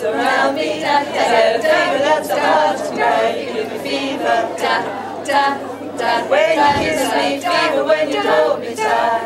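Several voices singing together at once, unaccompanied or nearly so.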